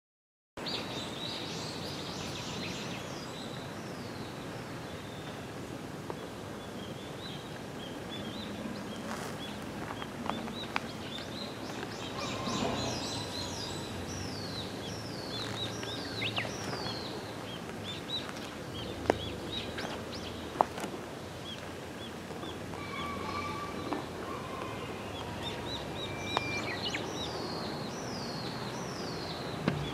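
Small birds calling in runs of quick, short falling chirps, with a few held whistled notes, over steady outdoor background noise; a few sharp clicks stand out.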